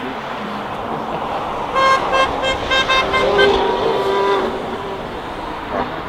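Distant Formula 1 car's V6 turbo-hybrid engine: a high, steady note that cuts in and out rapidly for a couple of seconds, then a lower steady note fading out, over a steady background hum.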